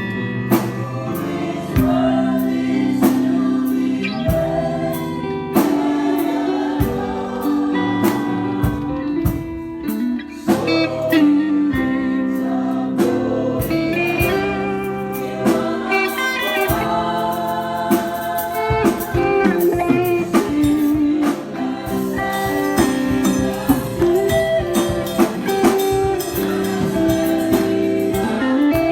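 Live band music: singing over guitar and drums.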